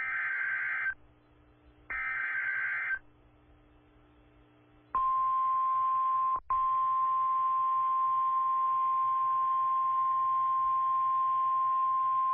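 NOAA Weather Radio Emergency Alert System tones. First come two one-second bursts of SAME header data, a raspy warbling data sound, about a second apart. Then, about five seconds in, the steady 1050 Hz warning alarm tone starts. It cuts out for an instant a second and a half later and then holds on. The tones announce a new severe thunderstorm warning.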